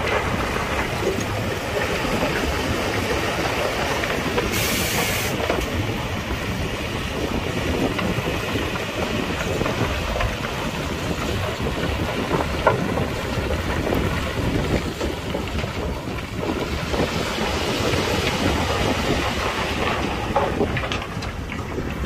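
Heavy earthmoving machinery working, a steady rumble and clatter with a short hiss about five seconds in.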